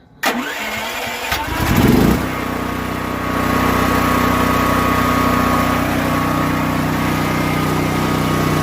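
DuroMax XP13000EH generator engine starting on propane: it cranks for about two seconds, catches, then settles into steady running.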